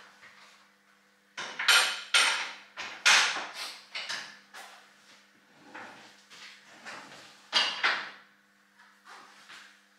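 Levers of a mechanical signal-box lever frame being thrown and latched as points and a lock are set for a route: a string of heavy metal clanks and clacks with a short ring. The loudest come about two seconds in, around three seconds in and near eight seconds, with quieter knocks between.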